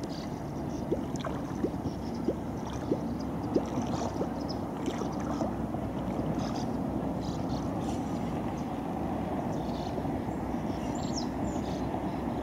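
Small water sounds, lapping and gurgling around an inflatable kayak, over a steady low rumble of wind, with a few light ticks in the first four seconds.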